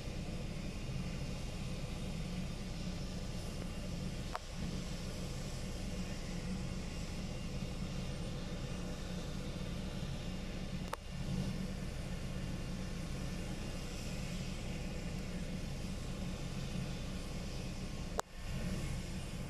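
Ambulance helicopter idling on the ground with its main rotor turning: a steady turbine-and-rotor rumble with a fast pulse, heard from inside a car. The sound breaks off with a short click three times where the recording is cut.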